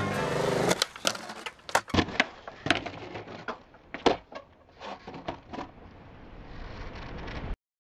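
Skateboard on concrete: a scatter of sharp clacks and knocks from the tail popping and the board and wheels landing, then wheels rolling with a hiss that grows louder and cuts off suddenly near the end. Music fades out in the first second.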